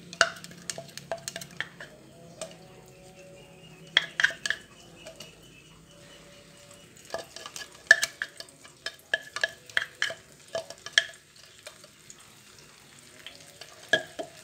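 Ground chili spice paste frying in a little hot oil in a nonstick frying pan, sizzling with irregular clusters of sharp pops and spatters.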